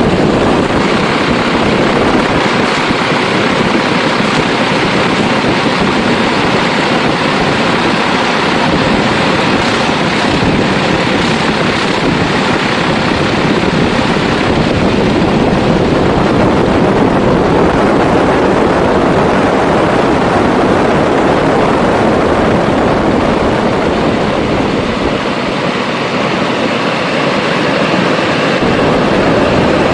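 Grumman G-164 Ag Cat seaplane's engine and propeller running steadily and loud, mixed with heavy wind noise on the microphone.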